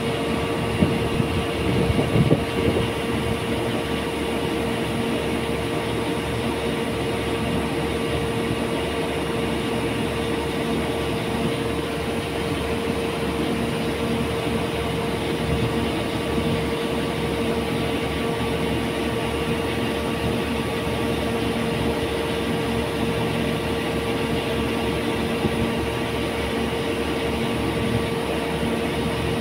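A stationary passenger train idling at a station platform: a steady engine hum with a constant whine that does not change. A couple of brief low bumps come about one and two seconds in.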